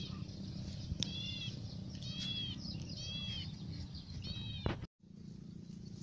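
Dove nestling squeaking: a short, high, mewing call about once a second, four or five times, over a low steady outdoor background. The sound cuts off abruptly near the end.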